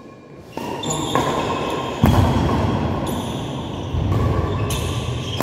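Badminton rally in an echoing sports hall. Racket strikes on the shuttlecock, several in a few seconds, each ringing on in the hall, with thuds of players' feet on the court floor.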